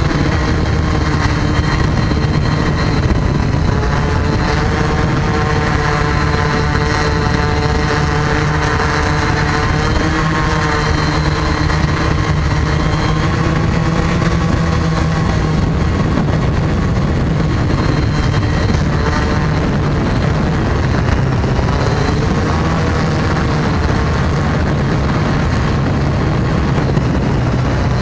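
Multirotor drone's electric motors and propellers whining steadily, heard close up from the drone itself, several tones shifting up and down in pitch together as it climbs.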